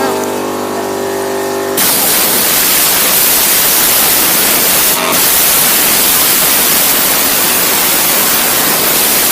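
Compressed air from an air compressor hissing in a loud, steady blast against a spinning fidget spinner. It starts about two seconds in, after a steady humming tone, and breaks off briefly in the middle.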